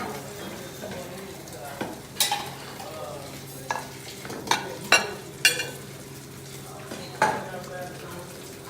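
Cutlery and dishes clinking: about seven sharp clinks that ring briefly, bunched in the middle, over a steady low hum.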